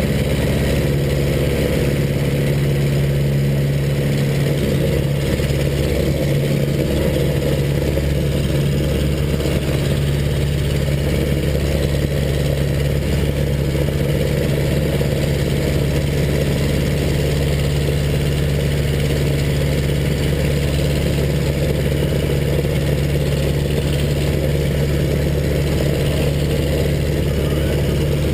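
Zlin Z-126 Trenér's four-cylinder Walter Minor engine and propeller running steadily at full takeoff power through the takeoff roll and climb-out, heard from inside the cockpit.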